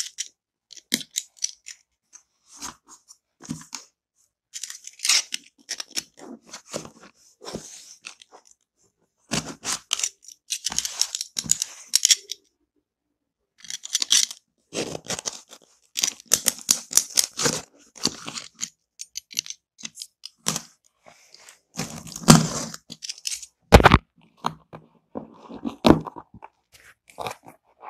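Cardboard parcel being cut and torn open with a snap-off utility knife: irregular crackling, crunching and tearing of packing tape and cardboard in scattered bursts, with one sharper knock near the end.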